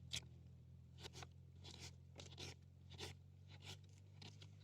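Faint knife strokes cutting vegetables on a board, short crisp cuts at an unhurried pace of roughly one to two a second.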